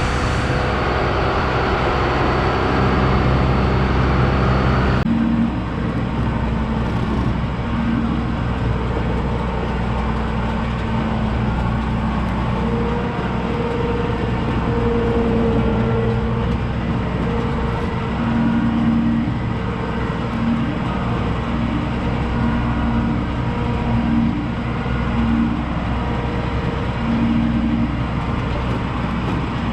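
A large engine running steadily. The sound changes abruptly about five seconds in, then a low engine drone continues with pulsing tones over it.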